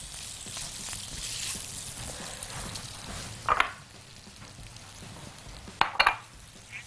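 Sliced smoked luncheon meat and hot dog sausage sizzling in a little oil in a frying pan as they are stirred with a silicone spatula. There are two brief louder scrapes of the spatula against the pan, about 3.5 seconds and 6 seconds in.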